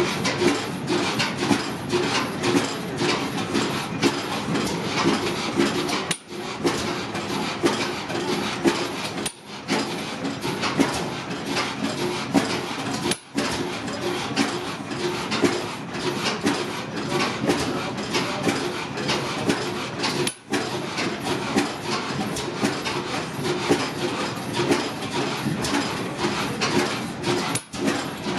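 Antique stationary gas engines running: a steady, fast clatter of knocks and clicks over a pulsing hum. The nearest is a small propane-fed vertical engine with twin flywheels.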